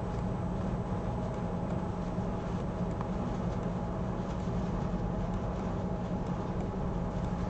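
Steady low background hum with a constant drone and no change over its length: room or equipment noise such as an air conditioner or fan.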